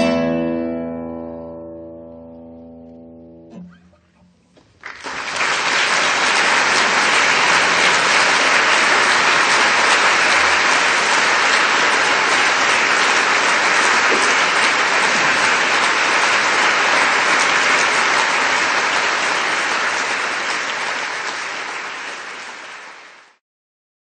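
An acoustic guitar's final strummed chord rings and dies away over about four seconds. About five seconds in, steady dense applause starts, and it fades out near the end.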